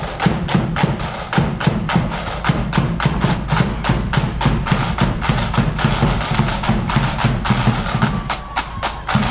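Marching band's side drums and bass drum playing a steady march beat, sharp stick strokes a little over two a second over a heavy low drum rumble. A thin held whistle-like tone comes in near the end.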